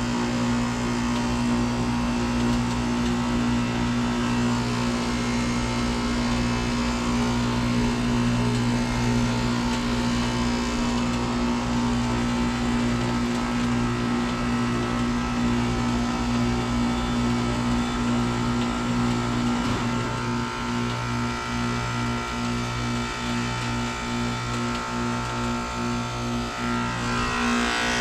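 A 2017 SmartComfort 2-ton heat pump's outdoor unit running with a steady hum. About two-thirds of the way through the hum turns pulsing, and near the end a rising whine and a rushing sound come in.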